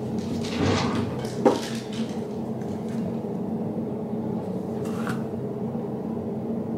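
Small cosmetic jars and containers being handled and set down on a counter: a few knocks and clicks, the sharpest about a second and a half in, over a steady low hum.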